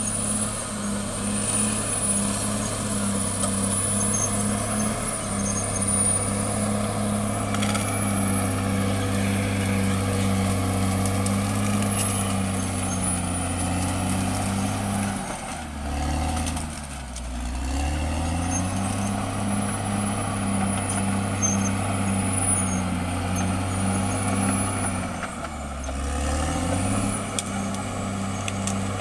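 CAT D6R XL bulldozer's diesel engine running steadily under load, with a faint high whine above it. Twice, about halfway through and again near the end, the engine speed drops briefly and then picks back up.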